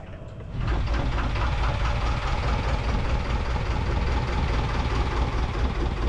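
A sailboat's inboard engine running steadily at idle, an even low rumble that starts abruptly about half a second in.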